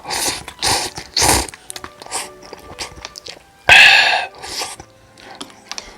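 Close-miked eating sounds: cup noodles slurped and chewed in a run of short wet bursts, with one loudest, longer slurp a little past the middle.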